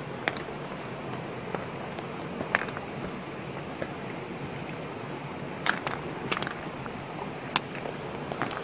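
Shallow stream running steadily over rocks, with a few sharp clicks and taps as large freshwater snail shells knock together while they are handled on a taro leaf.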